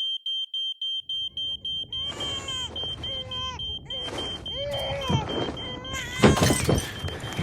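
Smoke alarm sounding a high-pitched tone that starts abruptly in rapid beeps, about five a second, then goes on more continuously. From about two seconds in, voices cry out over it, and a few loud bangs come near the end.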